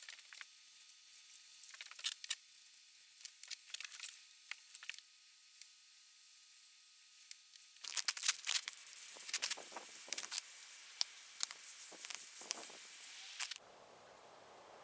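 Scattered light clicks and taps of hands handling things. About eight seconds in, a louder stretch of scraping and hissing with many clicks starts, then cuts off suddenly near the end, leaving a steady hiss.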